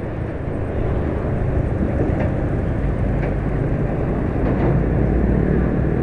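Ride noise from a moving motorcycle in traffic: a steady rumble of wind, engine and road, growing a little louder about a second in.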